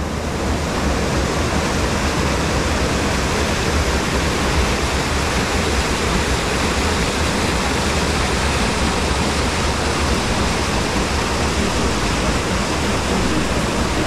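Mountain stream water pouring down a small rocky cascade into a pool, a steady, loud rush of falling and churning water.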